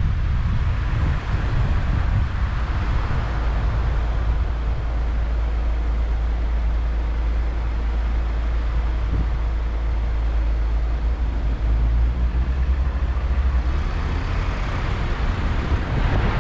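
Car driving on city roads: a steady low rumble of road and engine noise, with the tyre hiss growing a little louder near the end.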